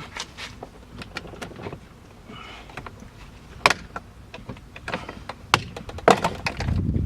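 Plastic retaining clips of a 2006 Audi A4 door trim panel being pried loose with a plastic spudger: a run of clicks, creaks and scraping, with sharp snaps about three and a half, five and a half and six seconds in as clips pop free.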